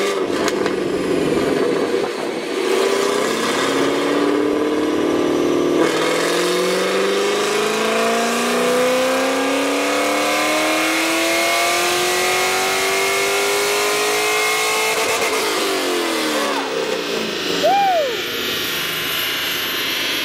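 2001 Corvette Z06's LS6 V8 through a Corsa exhaust, run on a chassis dyno: after a few seconds of running, the engine note climbs steadily in pitch for about nine seconds in a full-throttle pull, then falls away as the throttle closes and the engine winds down.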